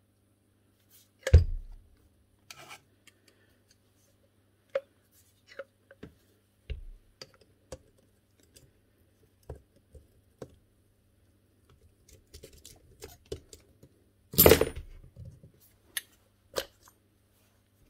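Scattered clicks, taps and scrapes of parts of a disassembled Makita HR0870C hammer being handled on a workbench, with two louder knocks, one about a second in and one late on.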